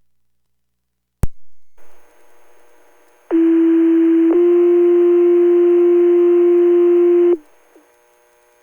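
Fire department two-tone sequential pager tone-out heard through a radio scanner. A click and radio hiss come first, then a steady low tone for about a second steps to a slightly higher tone held about three seconds. It ends with a short squelch tail. This is the page tone that sets off the firefighters' pagers for the call.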